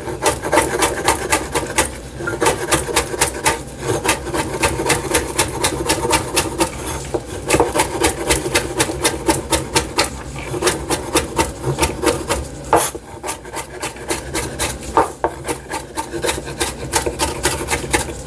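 Knife chopping green onions (scallions) on a cutting board in quick, steady strokes, several a second.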